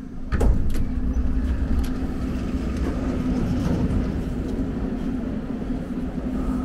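Metro train running, a steady low rumble with a held hum, and a sharp knock about half a second in.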